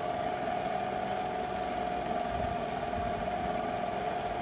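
Lapidary flat lap machine running with a steady whine, its speed turned down a little, while a piece of quahog shell is held against the spinning 800-grit polishing pad.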